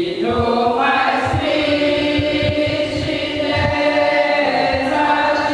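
A congregation singing a devotional hymn together, several voices in long held notes.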